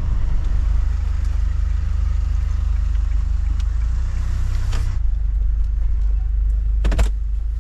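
Camper van engine and road noise heard from inside the cab as it drives slowly, a steady low rumble. A hiss dies away about five seconds in, and a quick cluster of clicks comes near the end.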